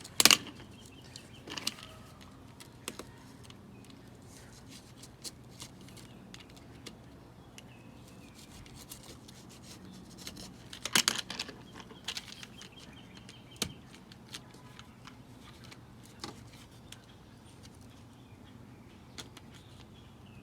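Spline roller tool pressing a reused rubber spline into the groove of a window screen frame: scattered clicks and knocks, with two louder knocks near the start and about halfway through.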